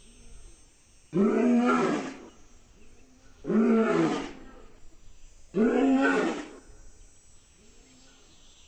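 African lion roaring: three loud roars, each about a second long and about two seconds apart, with softer short grunts between them and after the last.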